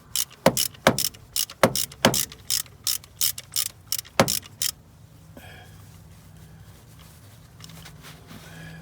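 Hand ratchet wrench clicking in repeated strokes, about two to three clicks a second, while working a fastener to remove the old secondary air check valve. The clicking stops about halfway through, leaving a faint low hum.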